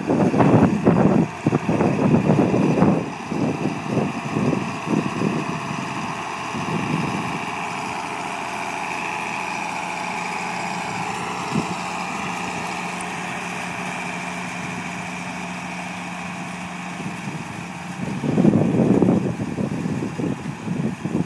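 John Deere tractor's diesel engine running steadily under load while pulling a wide spring-tine harrow. Wind buffets the microphone for the first few seconds and again near the end.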